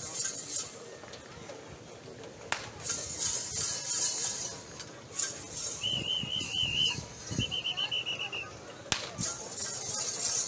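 Bull-race crowd noise with bursts of high jingling, broken by two trilling whistle blasts about six and seven and a half seconds in. Sharp cracks come near three and nine seconds.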